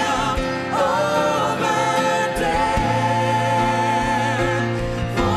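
Congregational worship song: singers with a band, voices holding and sliding through sung notes over sustained low accompaniment.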